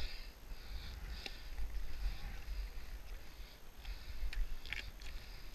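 A winded skier's heavy breathing after a fall in deep snow: several breaths in and out, with a few light clicks and a low wind rumble on the microphone.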